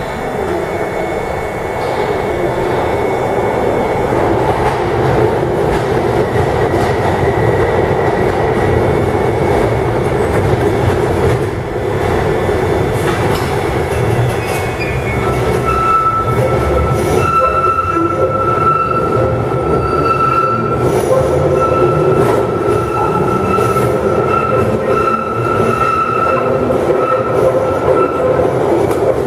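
London Underground 1972 Stock tube train standing at a platform with a steady rumble, then pulling away. From about halfway through, a steady high squeal with short breaks joins the rumble: wheels squealing on the curved platform track.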